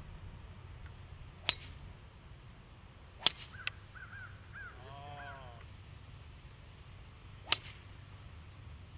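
Three sharp cracks of golf clubs striking balls off the tee, about a second and a half in, at about three seconds and near the end, with a bird calling several times between the second and third shots.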